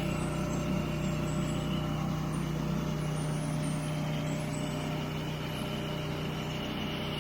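Gas pressure washer engine running steadily at an even pitch, with the hiss of the spray.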